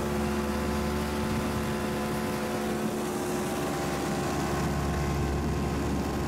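Starcraft 6x6 ATV's engine running steadily while the machine drives along, a constant drone of several steady tones over a low rumble.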